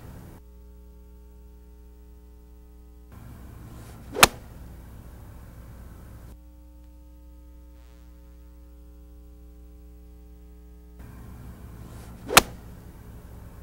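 Two crisp strikes of an iron club hitting a golf ball off the turf, about eight seconds apart, each with a brief swish of the swing, over a steady low hum.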